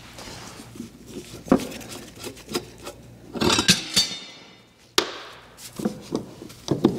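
Hand tools clanking against metal as they are handled and set down, a few separate sharp knocks; one clank about halfway rings briefly.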